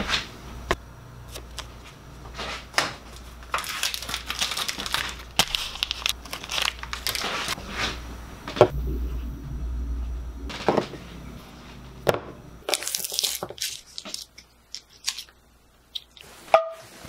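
Kitchen food-prep handling sounds: food packaging crinkling and tearing, with sharp clicks and knocks of things set down on the counter and stovetop. The background hum drops away abruptly about two-thirds of the way in, as short clips are cut together.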